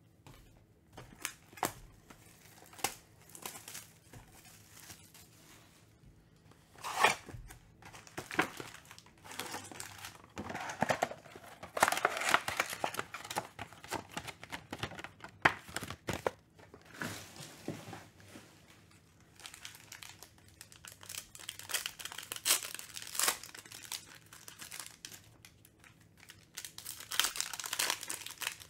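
Foil-wrapped Panini Mosaic basketball card packs being handled and torn open by hand: irregular crinkling and tearing of the wrappers with sharp clicks and taps of cardboard, busiest in the middle and again near the end as a pack is ripped open.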